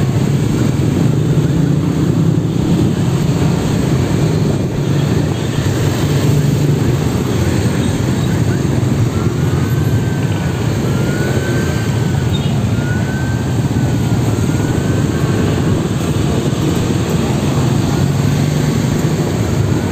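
Motorcycle riding slowly in congested city traffic: a steady engine hum with rumbling road and wind noise. About halfway through, a faint tone rises and falls four or five times.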